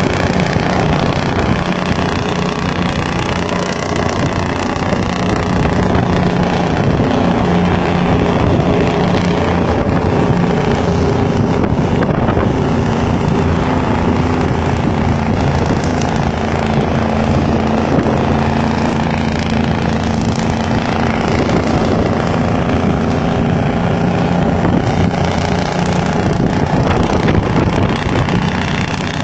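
Vehicle engine droning steadily under road and wind noise while driving, heard from inside the moving vehicle; the engine's pitch drifts a little up and down.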